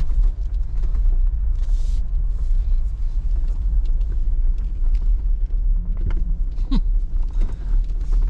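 Jeep Grand Cherokee WJ's engine running, a steady low rumble.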